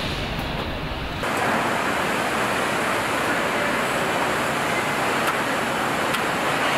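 Steady automotive assembly-line ambience: a low rumble that changes abruptly about a second in to an even, loud hiss, with a couple of faint clicks.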